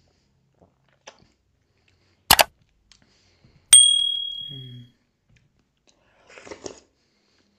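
Subscribe-button sound effect: a sharp double mouse-click, then a click with a bell ding that rings out and fades over about a second. Near the end, a short wet slurp as a handful of dhido and nettle curry goes into the mouth.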